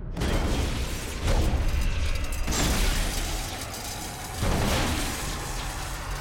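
Film sound effects of explosive rounds bursting against a metal robot: about four sudden blasts with shattering metal and scattering debris, each with a deep rumble, spaced a second or two apart.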